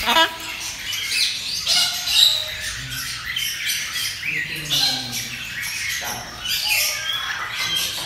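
Parrots squawking and chirping, many short calls overlapping, with a loud squawk right at the start and another about two seconds in.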